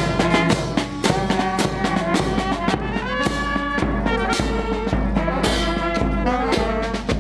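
Marching band playing a tune: saxophones and brass over a bass drum beating steadily about twice a second.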